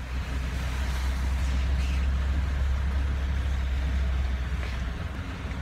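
Car driving through a rain-flooded street, heard from inside the cabin: a steady low rumble under a hiss of water and rain. The rumble eases off about five seconds in.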